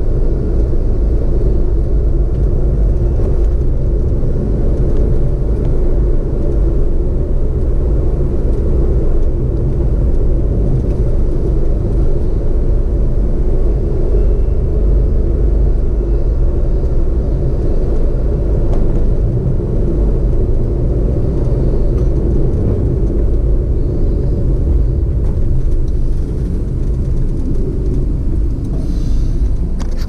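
A car driving along a road: a steady low rumble of engine and tyre noise, easing slightly a few seconds before the end.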